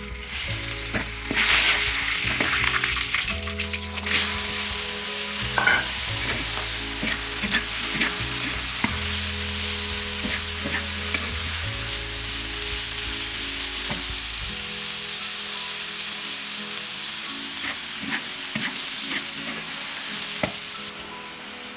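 Sliced celtuce (stem lettuce) sizzling in hot oil in a wok over high heat while a spatula stirs and turns it, with short scraping ticks from the spatula on the pan. The sizzle gets louder about a second in, holds steady, and cuts off abruptly near the end.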